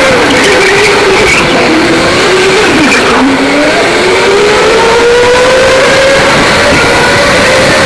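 Electric indoor go-kart motor whining from the driver's seat. Its pitch falls as the kart slows about three seconds in, then climbs steadily as it speeds up again, over a steady rushing noise.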